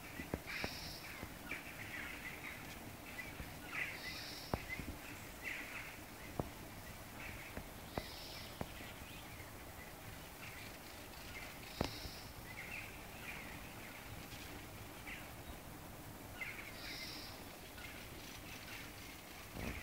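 Morning birdsong from several birds: many short chirps, and one bird repeating a short high call about every four seconds. A few sharp ticks sound now and then.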